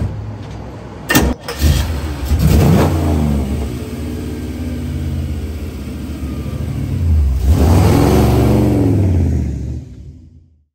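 The fuel-injected 383 V8 of a 1955 Chevy Bel Air starts about a second in and is revved up. It runs steadily for a few seconds, then revs again as the car accelerates away near the end, and the sound fades out.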